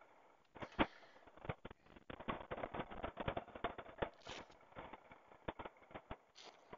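Boots crunching on gravel, with irregular clicks and rustles from riding gloves and jacket being handled; a couple of brief louder rustles, about four seconds in and near the end.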